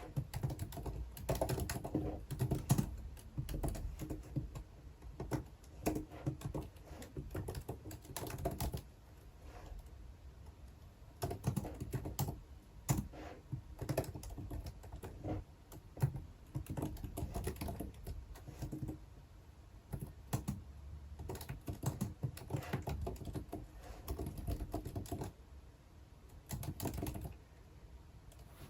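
Typing on a computer keyboard: runs of rapid key clicks, with short breaks between the bursts.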